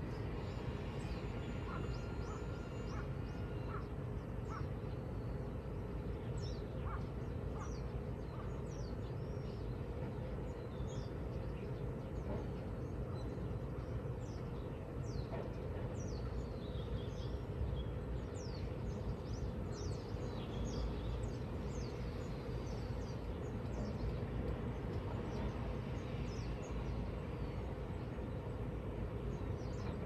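Wild birds calling: many short, high, quickly falling chirps, busiest through the middle of the stretch, over a steady low outdoor rumble.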